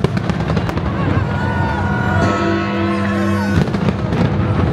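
Fireworks bursting and crackling over music with long held notes, with sharp bangs at the very start and again about three and a half seconds in.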